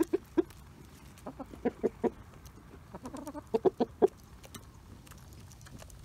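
Chickens clucking in short clusters of low calls while feeding, with a brief warbling murmur just past the middle, amid faint scattered ticks of beaks pecking seeds.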